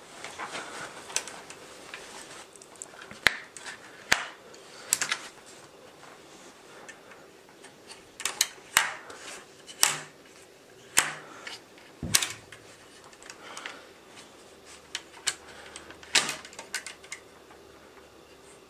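Dynafit TLT Radical ST tech binding heel unit worked by hand: a dozen or so sharp, irregular clicks and clacks as its heel risers are flipped through the walking-mode heights, with some rustling of handling at the start.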